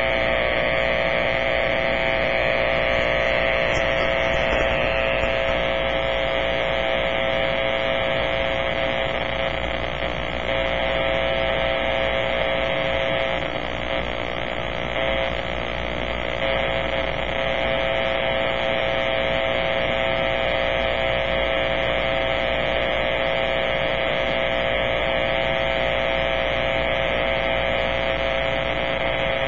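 Power-line noise from a Kenwood amateur radio transceiver's speaker, received in AM at 50.1 MHz: a steady, harsh electrical buzz. It is radio interference from arcing on the power lines, which the owner ties to a damaged lightning arrester on a utility pole or a similar fault.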